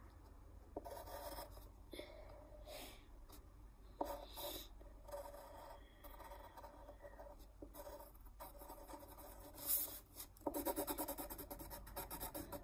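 Graphite pencil scratching on paper in short drawing strokes, turning into a quick run of rapid repeated strokes near the end.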